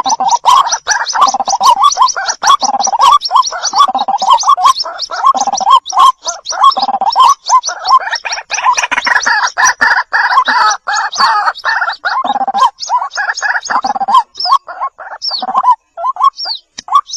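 White-breasted waterhen chicks calling: a rapid, unbroken run of short repeated chirping notes, several a second, that thins out into more spaced calls near the end.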